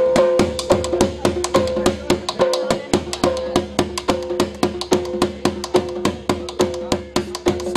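Dhol drumming a fast, steady jhumar dance rhythm of about five strokes a second, with a held tone beneath the beats.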